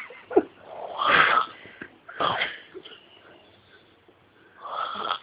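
A person making short, breathy wheezing sounds, four bursts at uneven gaps, the last near the end.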